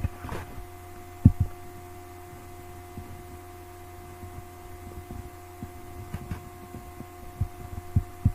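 Steady electrical hum with scattered soft low knocks and clicks, the loudest about a second in and another near the end.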